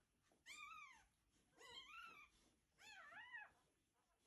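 Newborn Portuguese Water Dog puppy crying: three high, thin squeals, each rising and then falling in pitch, a little over a second apart.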